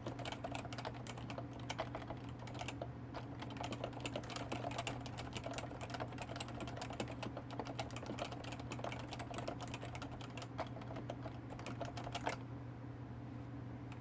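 Fast typing on a Topre Realforce 104U keyboard with 45 g electrostatic capacitive rubber-dome switches and laser-printed ABS keycaps: a quick, uneven stream of key strokes. The typing ends about twelve seconds in with one louder stroke. A steady low hum runs underneath.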